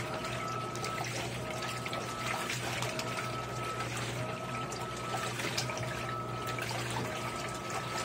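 Electrolux LAI17 17 kg top-load washing machine agitating a load of towels in low-level rinse water: water sloshing and churning over a steady motor hum, with a faint whine that comes and goes roughly once a second.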